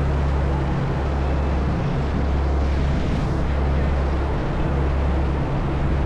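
Passenger ferry's engines running steadily under way, a constant low drone, with the rush of its churning wake.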